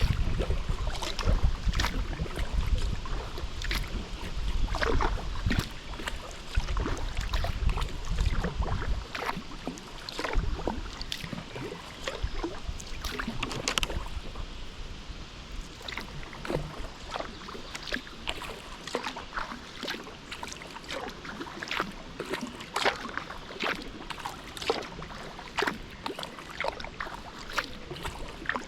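Kayak paddling: the paddle blades dip and pull, making many small, irregular splashes and drips of water. Wind rumbles on the microphone for the first nine seconds or so, then drops away.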